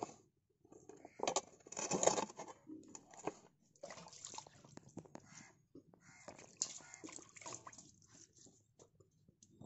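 Wet granite grinding stone (ammikkal) in use: the stone roller is rocked and scraped across the water-slick slab, giving irregular grinding, knocking and squelching sounds. There is a sharp knife click on a wooden board right at the start.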